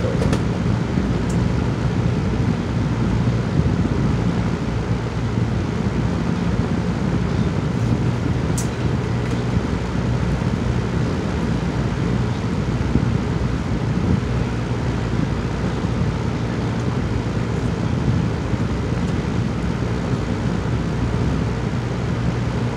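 Steady low hum and hiss of room background noise, with a few faint clicks.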